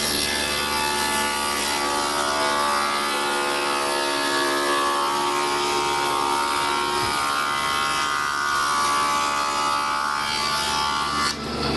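Spindle moulder cutter spinning at speed and cutting a profile into the curved edge of a wooden panel fed against it in a template jig: a steady whining cutting noise of many tones whose pitch wavers slightly as the load on the cutter changes. It cuts off sharply near the end.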